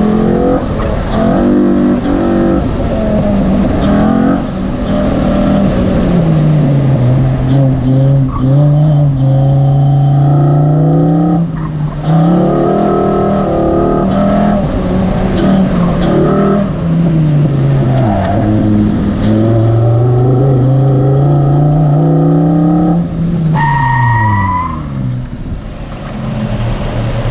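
Mk5 VW Rabbit's 2.5-litre inline five-cylinder (07K) engine with a short runner intake: loud intake noise as it revs up hard and drops back over and over under acceleration and lifts. Near the end the revs fall away, with a brief rising whine.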